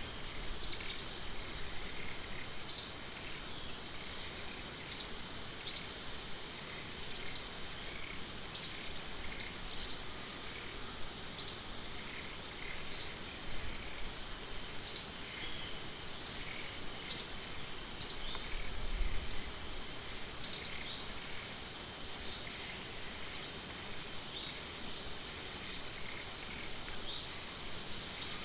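A bird giving short rising chirps, repeated about once every second or so, over a steady high-pitched insect drone, like crickets or cicadas.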